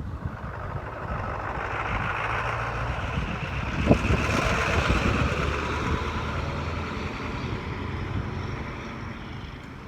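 A motor vehicle's engine running with a low rumble as it passes, its noise swelling to a peak about four to five seconds in and then fading, with a single sharp knock just before the peak.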